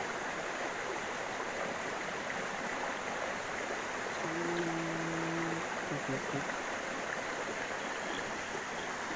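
Steady rush of flowing stream water. About four seconds in, a low, steady hum is held for just over a second, followed by a few short blips.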